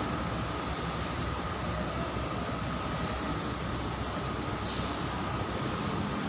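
A 200 kg gas-fired furnace running: a steady rushing burner and blower noise with a constant high whine over it. A short hiss comes about three-quarters of the way through.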